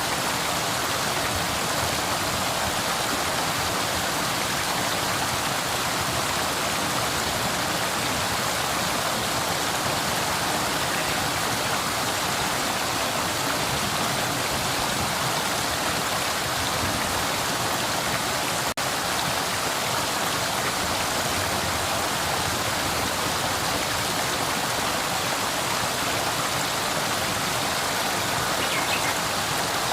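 Flowing river: a steady, even rush of water, with a momentary dropout about two-thirds of the way through.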